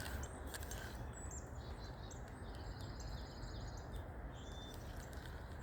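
Faint, steady outdoor background noise with a small bird chirping a quick series of short, high notes in the distance from about a second and a half in.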